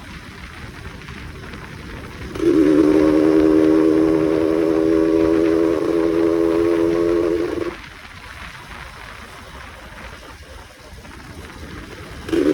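Yamaha F1Z-R two-stroke motorcycle, tuned for a loud exhaust note, riding at steady revs with a pitched, droning exhaust tone for about five seconds, then dropping off to a quieter rumble. The tone comes back near the end.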